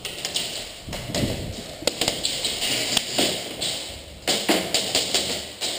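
Irregular taps and knocks with rustling, from a player moving quickly on foot over a concrete floor carrying gear and a replica shotgun.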